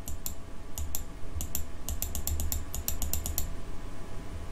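Computer keyboard keys tapped over and over, each press a sharp double click. The taps are spaced out at first, then come fast for about a second and a half, and stop about a second before the end. This is the sound of stepping a chart replay forward.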